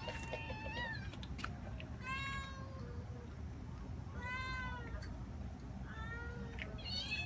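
Cats meowing: about five separate meows, each under a second and rising then falling in pitch, spaced a second or two apart, over a steady low rumble.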